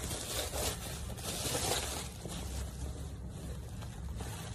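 Plastic bubble wrap rustling and crinkling in irregular bursts as a cardboard box is pulled out of it, over a steady low hum.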